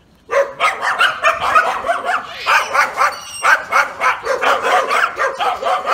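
A dog barking over and over, two or three barks a second, starting just after the opening moment.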